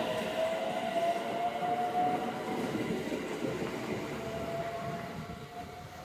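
JR West 521 series electric train pulling away from the platform. Its traction motors whine, rising in pitch as it accelerates, over the rumble of wheels on the rails. The sound fades near the end as the train draws away.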